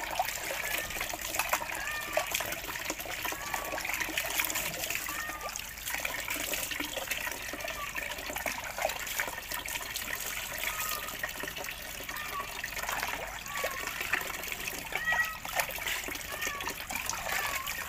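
Water trickling and splashing steadily while a small dog's wet curly coat is washed by hand. Short high chirps recur every second or two over it.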